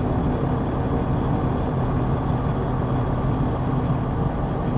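Semi truck's diesel engine running steadily while driving slowly, a constant low hum with road noise.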